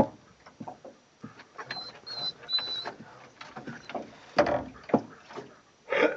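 Irregular knocks and rubbing, with a brief high squeak about two seconds in and louder thumps about four and a half and six seconds in.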